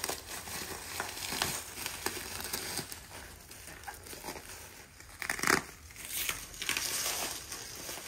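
Plastic bubble wrap crinkling and rustling as it is handled and pulled open, in irregular bursts with scattered small crackles, the loudest burst about five and a half seconds in.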